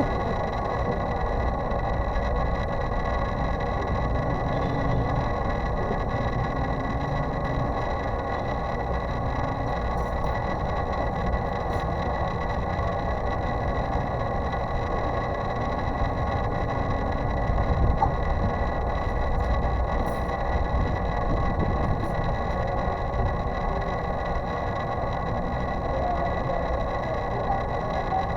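Steady mechanical hum with several constant whining tones over a low rumble, unchanging throughout.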